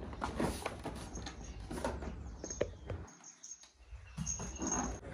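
Cardboard packaging of a large wall clock rustling and scraping as it is held and moved about, with scattered clicks and a few brief high squeaks.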